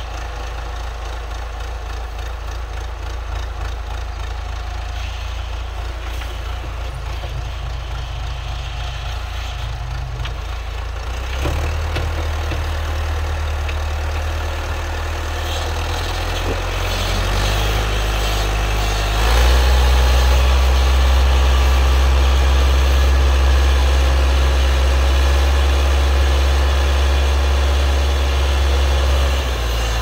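Massey Ferguson 50E backhoe's Perkins diesel engine running. Its speed and loudness step up about a third of the way in and again near the middle, then hold steady at the higher speed.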